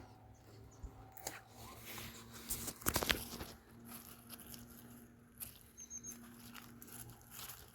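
Scattered small crackles and crunches, with a denser burst of crunching about three seconds in.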